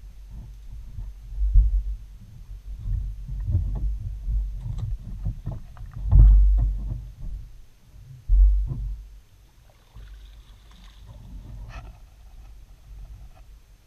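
Kayak paddling heard through a bow-mounted action camera: paddle strokes and water knocking against the hull as low thumps every couple of seconds, the loudest about six and eight seconds in, growing quieter after that.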